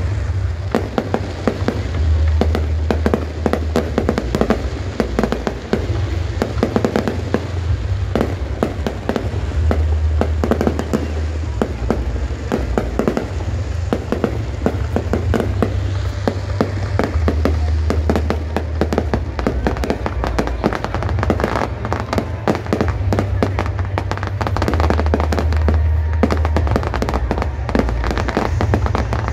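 Aerial fireworks bursting and crackling in a rapid, dense run of bangs, over music with a deep bass and crowd voices.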